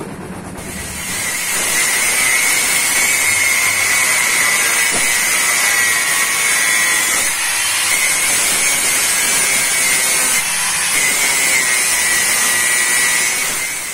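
Electric angle grinder running under load on metal: a steady high whine with a hissing rush. It starts about a second in and cuts off just before the end.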